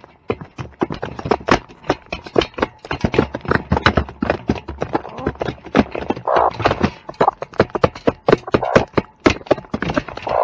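Rapid, irregular tapping and knocking from farm animals, several hits a second, with a few short animal calls in the second half.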